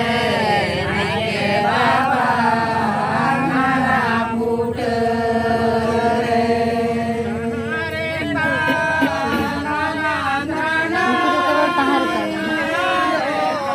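A group of voices chanting a ritual song together, with long held notes that rise and fall.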